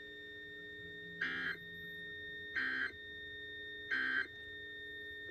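Emergency Alert System end-of-message signal: three short bursts of two-tone digital data screech, about one and a half seconds apart, over a faint steady hum.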